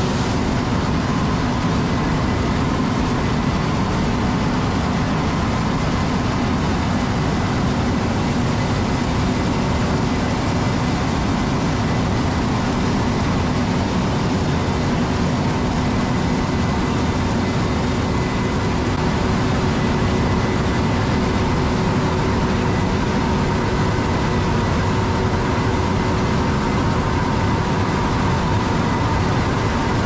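Case IH 8250 combine harvester running steadily while harvesting corn: an even machinery rumble with a few constant whining tones over it that do not change.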